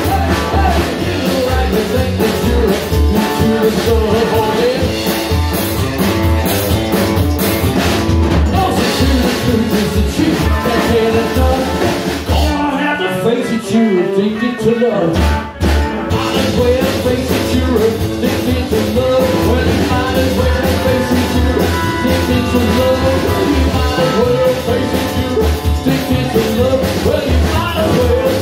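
A live rock and roll band playing, with an upright double bass and a man singing into the microphone. About halfway through, the band drops almost out for roughly three seconds, then comes back in.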